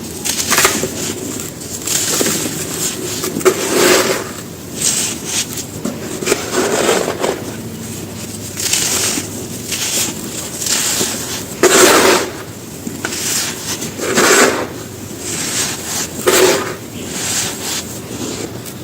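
Dry sand-cement pieces being crushed and crumbled: a run of gritty crunching bursts every second or two, the loudest about two-thirds of the way through.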